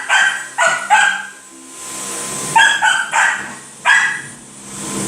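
Dog barking in short, high-pitched barks: three quick ones, a pause of about a second and a half, then three more.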